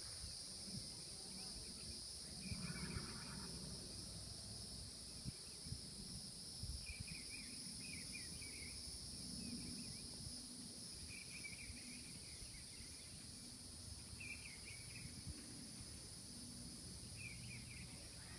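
Faint, steady high-pitched drone of an insect chorus, with short scattered chirps now and then.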